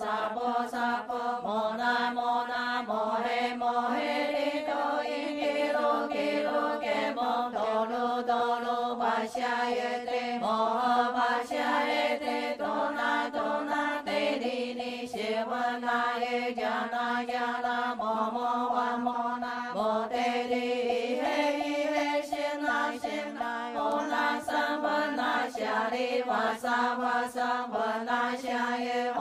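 A group of temple chanters intoning Buddhist sutra text together in a slow, drawn-out melodic chant, holding long notes and stepping between pitches. Light taps keep a steady beat under the voices.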